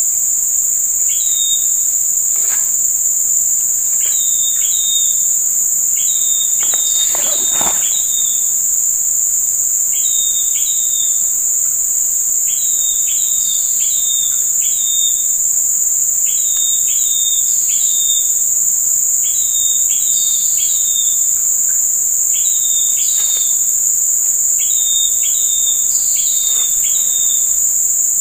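Loud, steady high-pitched drone of insects in riverside forest, with short chirps in small groups repeating every couple of seconds over it.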